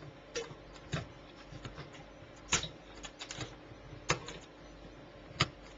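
Small side cutters snipping excess component leads off a soldered circuit board: a series of sharp, short snips at irregular intervals, the loudest about two and a half, four and five and a half seconds in, with fainter clicks between.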